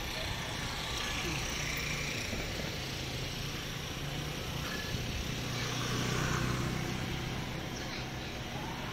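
Street traffic: scooter and car engines running close by, a steady low hum that grows a little louder around the middle.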